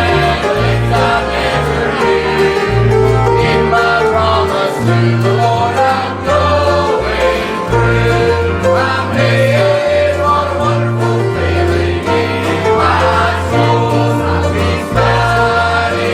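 A gospel song sung by a group of voices over string-band accompaniment, with a bass line walking from note to note about every half second.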